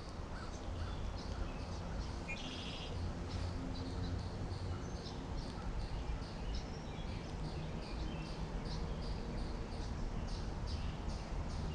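Steady rain falling, with birds chirping in short, scattered calls and one brief buzzy call about two and a half seconds in.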